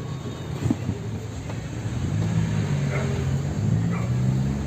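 Ford F250's four-cylinder Cummins turbodiesel idling with its exhaust cutout open right after the turbo, a steady low rumble; a deeper droning hum builds about two seconds in.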